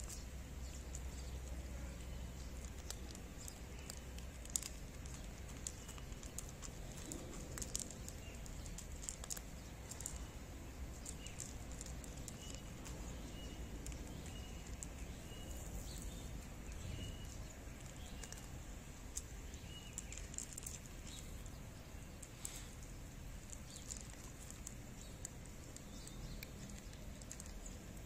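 Quiet outdoor ambience with scattered faint clicks and taps, and a run of short, high chirps repeated about once or twice a second through the middle.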